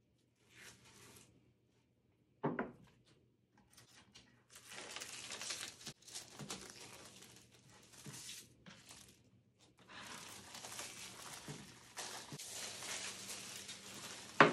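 Clear plastic shrink wrap crinkling and tearing as it is peeled off a wooden skateboard deck. There is a single knock about two and a half seconds in, and a sharp, louder knock right at the end.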